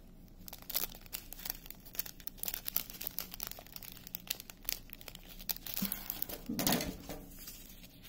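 Small plastic bag of diamond painting drills crinkling as it is handled, with many irregular small clicks and crackles.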